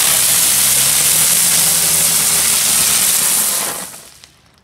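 Neon spinning flower ground-spinner fireworks hissing steadily as they spin and throw sparks, dying away about four seconds in.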